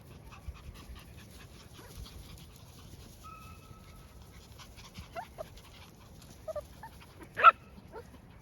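Collie puppies whimpering in short, high squeaks over faint rustling, ending in one louder sharp yelp near the end.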